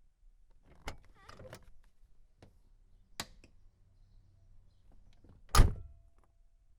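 Door of a 1990 Volvo 240 being worked: a latch click about a second in followed by a short creak, another click around three seconds, then a loud thunk near the end as it shuts.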